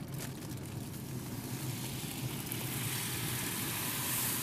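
Steady low hum under an even hiss, growing a little louder over the last couple of seconds, from a smoker left running.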